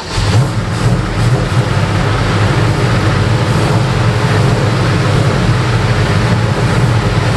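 1970 Ford XY Falcon engine running steadily.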